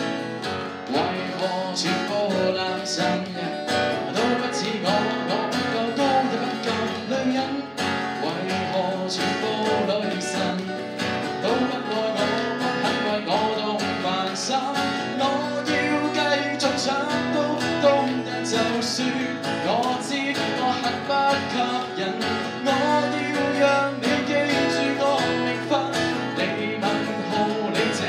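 Man singing a Cantonese pop song live, accompanying himself on a strummed acoustic guitar; the voice comes in about a second in over the guitar.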